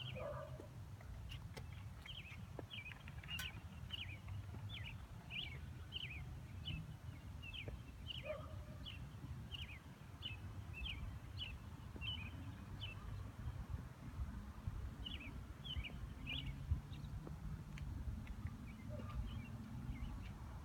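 A small bird chirping over and over, short high chirps about two a second, with a pause a little past halfway before a few more, over a steady low rumble.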